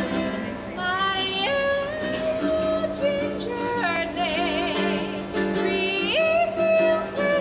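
A woman singing to her own strummed E.L. Woodworks traditional tenor ukulele. The voice leaps in pitch and swells with vibrato over steady strummed chords.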